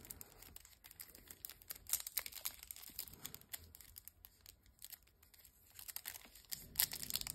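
Faint crinkling and crackling of trading cards and plastic wrapping being handled, with denser crinkles near the end as the wrapper of a sealed card deck is picked at.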